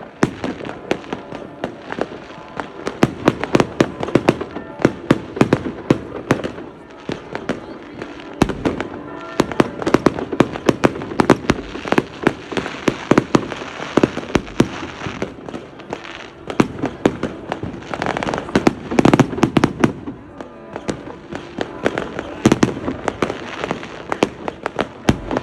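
Fireworks going off: a dense, irregular run of sharp bangs and crackles, many close together, with louder clusters coming in waves over a constant rumble.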